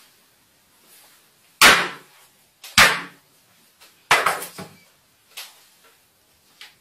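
Claw hammer striking a Samsung smartphone on a wooden desk: two heavy blows about a second apart, then a third knock with a short rattle as the hammer comes down on the desk. The blows crack the phone's screen.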